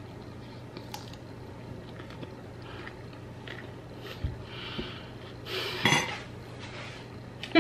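Metal cutlery clinking and scraping against a bowl during eating: a few light clicks, then a louder scrape about six seconds in.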